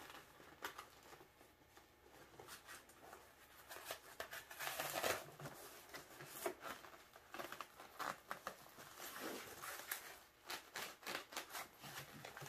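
Faint rustling and light clicking of a wire and fuse holder being handled and wrapped tight under a snowmobile's plastic handlebar pad, with a louder rustle about five seconds in.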